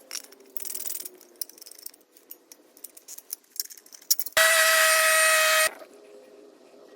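A power tool runs in one steady whining burst of about a second and a half, starting and stopping abruptly, amid light clinks of hand tools and metal parts.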